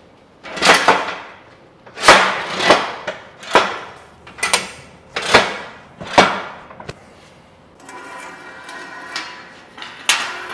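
A run of about eight loud knocks, roughly one a second, each with a short ringing tail, in a board glue-up. Near the end they give way to a quieter steady hum with a few light clicks.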